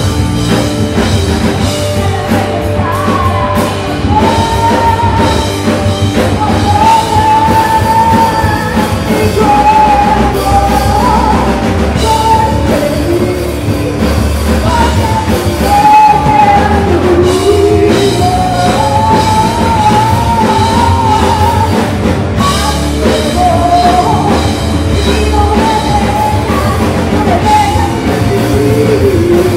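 Live rock band playing: a woman sings the lead melody in long held notes over drum kit, electric guitar and bass guitar.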